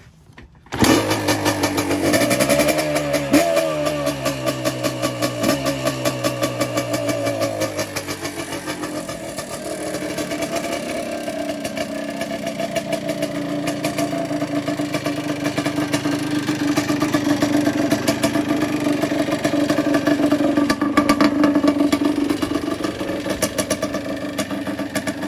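Yamaha Blaster's single-cylinder two-stroke engine cold-starting about a second in, revved up and down a few times, then settling into a steady idle. The top end is freshly rebuilt with a new piston in a honed cylinder, and the engine is breaking in.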